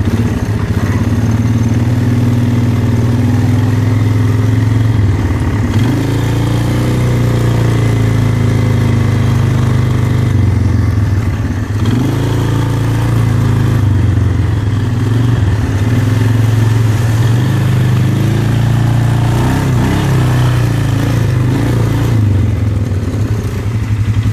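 Polaris ATV engine running close to the microphone as the quad rides along, its pitch rising and easing several times with the throttle.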